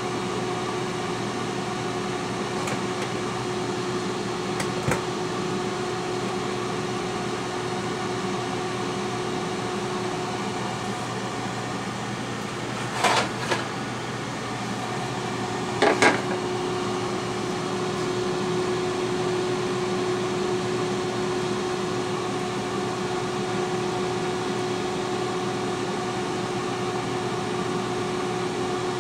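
T-fal air fryer running while it cooks: a steady fan hum with a held tone. About halfway through, two brief knocks a few seconds apart.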